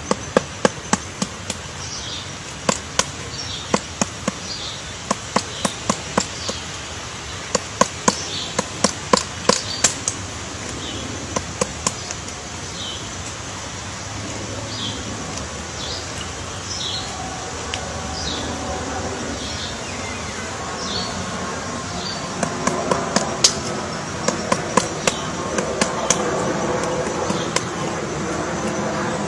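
Woodpecker pecking at wood: sharp, irregular knocks a few a second in two spells, with short high bird calls between them. A low steady hum, like distant traffic, builds in the second half.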